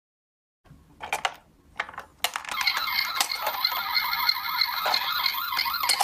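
A few plastic clicks and knocks of toy cars being handled in a cardboard box, then, about two seconds in, a toy ambulance's electronic siren starts and keeps sounding with a warbling wail.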